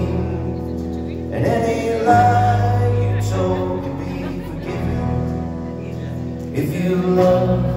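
Live rock band playing a slow song, with electric guitars, drums and keyboard; the chords change every second or two.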